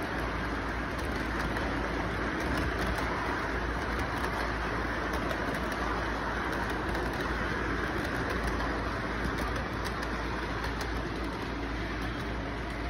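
Model train cars rolling past on their track, heard within a steady background noise that has a low hum under it.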